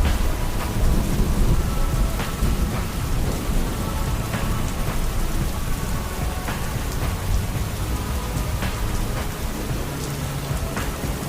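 Steady heavy rain with a continuous low rumble of thunder beneath it, and scattered sharp drop ticks on top.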